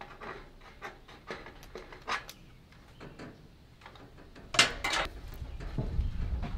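Steel roof trim being worked by hand with a hand tool: scattered light clicks and metallic scrapes, with a louder burst of clattering about four and a half seconds in, as the end tab of the trim is bent to hook around the fascia.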